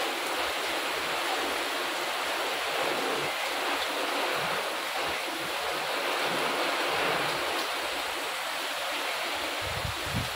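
Heavy tropical rain pouring down in a steady, even hiss. A low, uneven rumble comes in near the end.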